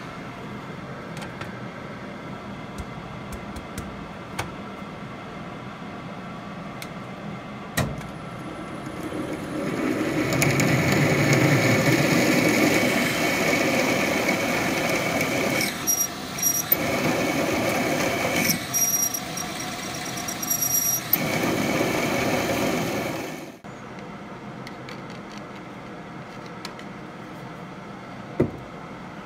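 Metal lathe running while a tailstock-held twist drill bores the 8.8 mm tapping hole in a steel part: a steady machine hum, then from about ten seconds in the louder cutting sound with a high squeal of the drill in steel, broken briefly about three times. The lathe motor stops abruptly about 23 seconds in, leaving quiet workshop room tone and one click.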